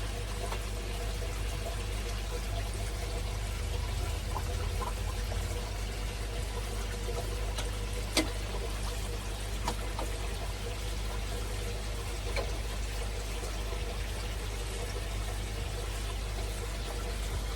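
Water at a koi pond pouring and trickling steadily, under a low steady hum, with one sharp click about eight seconds in and a couple of fainter ticks after it.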